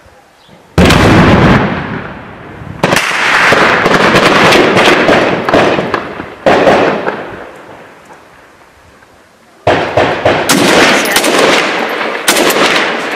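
Combat in a ruined town: three heavy booms, about a second, three seconds and six and a half seconds in, each followed by a long rolling echo. From about ten seconds in comes a rapid run of sharp automatic rifle shots.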